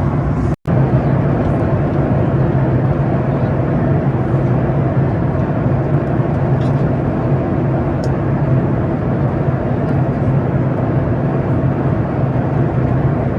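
Steady engine and airflow noise of a Boeing 737 MAX 8 heard from the passenger cabin, with a constant low hum underneath. It cuts out for an instant about half a second in.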